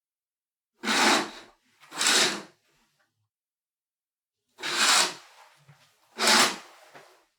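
Window curtain being drawn: four quick swishes of fabric sliding along its rail, in two pairs about a second apart, the first pair about a second in and the second near the end.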